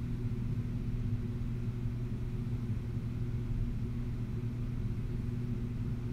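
A steady low hum, even and unbroken, with a faint noisy haze above it and no distinct events.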